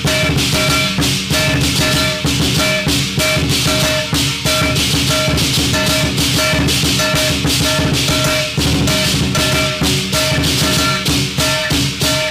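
Lion dance percussion: a large Chinese lion drum beaten rapidly, a hand gong struck in a steady beat about twice a second, and cymbals clashing continuously.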